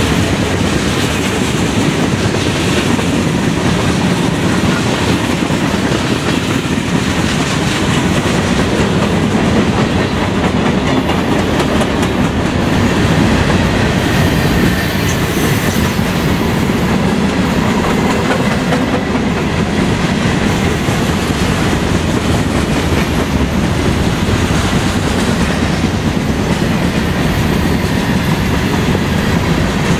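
Freight cars of a long mixed freight train rolling past: a steady rumble of steel wheels on rail with the clickety-clack of the wheels.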